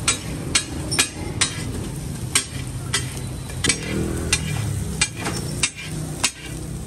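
Steel cleaver chopping vegetables on a hot flat tawa griddle: sharp metal-on-metal clacks, irregular, about two a second, over the steady sizzle of oil.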